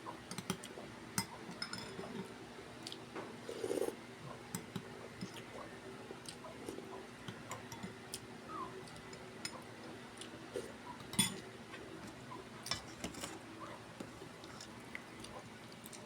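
Close-up eating sounds: chewing with many small, scattered clicks and clinks of utensils against a dish.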